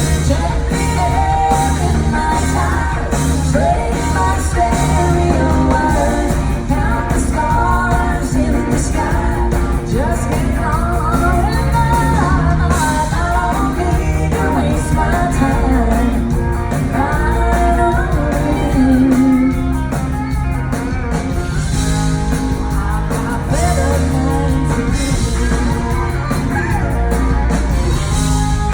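Live band music with a singer, over a steady drum beat and heavy bass.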